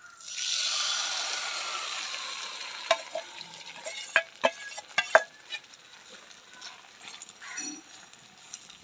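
Potato, onion and egg batter poured into hot oil in an aluminium pan, sizzling loudly at once and then slowly dying down. From about three seconds in, a slotted steel spoon clinks sharply against the metal several times while scraping the last of the batter from a steel bowl.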